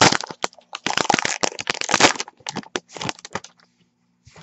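Trading cards and their foil pack wrapper being handled and tapped down on a table: a dense run of sharp crackles and taps that stops about three and a half seconds in.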